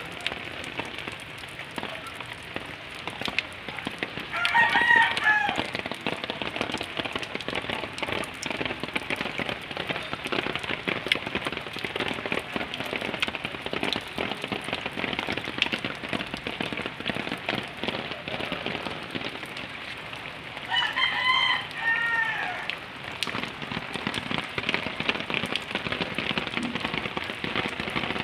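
Steady rain pattering on surfaces. A rooster crows twice over it, about four seconds in and again about twenty seconds in.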